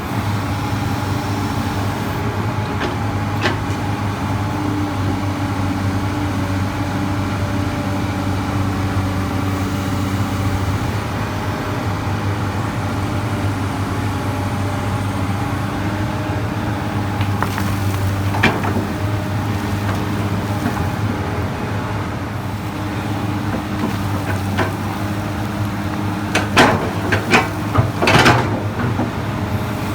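Komatsu PC200 excavator's diesel engine running steadily while digging, with a few sharp clanks: one early, one midway and several in quick succession near the end.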